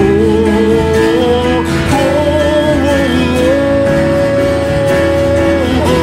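Live worship music: a man's voice singing three long held notes over acoustic guitar and piano accompaniment.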